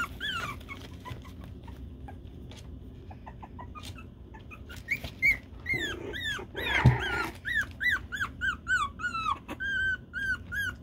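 Young puppy, about four and a half weeks old, whimpering and crying in short high rise-and-fall cries, about two a second. The cries pause for a few seconds early on and then run steadily through the second half, with a brief thump about seven seconds in.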